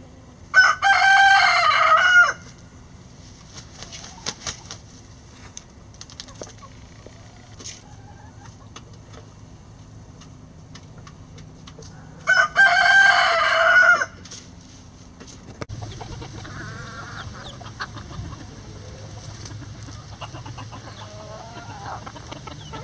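Rhode Island Red rooster crowing, two full cock-a-doodle-doo calls about eleven seconds apart, each a little under two seconds long. Softer hen clucks follow in the last several seconds.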